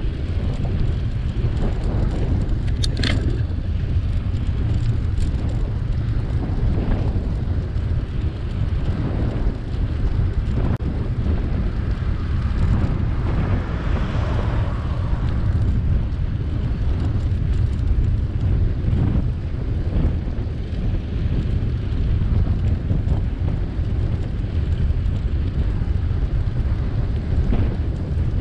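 Wind buffeting the microphone of a camera riding along on a bicycle: a steady low rumble, with a short sharp click about three seconds in.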